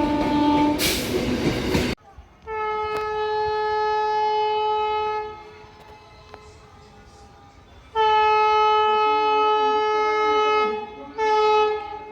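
Indian Railways electric train horns: one horn ends under a loud rush of noise in the first two seconds. After a cut, another horn sounds two long blasts of about three seconds each and a short blast near the end.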